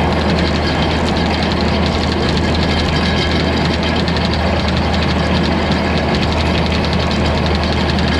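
Old farm tractor's engine running steadily, with a fast, even mechanical clatter from the machinery it drives, typical of a tractor pulling a hay baler.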